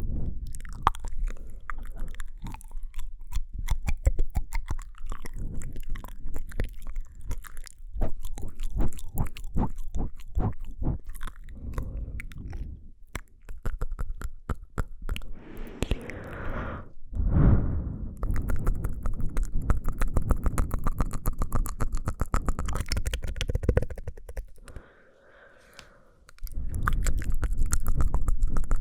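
ASMR mouth sounds: a dense run of quick wet clicks and smacks of lips and tongue, with a short pause about 25 seconds in.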